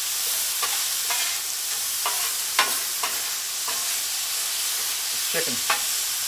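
Chicken and vegetables sizzling on a Blackstone flat-top griddle, with a steady frying hiss. Metal spatulas scrape and tap against the steel griddle top again and again as the food is stirred.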